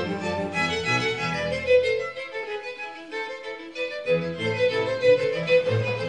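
Small string ensemble playing live: violins carry the melody over sustained low notes from a double bass, which drops out for about two seconds midway and then comes back in.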